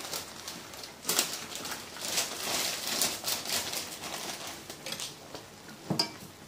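A plastic instant-noodle packet crinkling in the hand, then a metal spoon knocking against a steel cooking pot about six seconds in.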